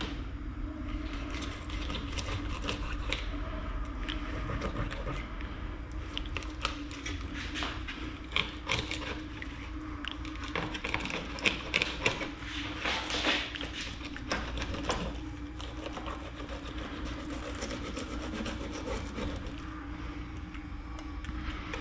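Fillet knife slicing and scraping through a bluegill against a wooden cutting board: a run of short rasping strokes, busiest around the middle, over a steady low hum.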